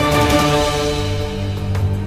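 Background music: held notes over a sustained low bass, with a drum hit near the end.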